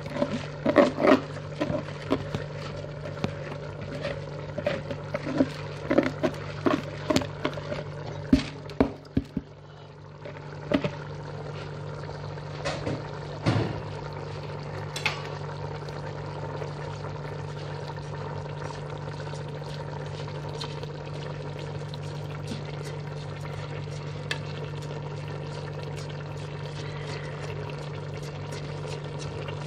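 Biryani rice tipped from a plastic container into a pot of sauce, with a run of knocks and scrapes over the first ten seconds or so. After that there is a steady low hum with a few light clicks.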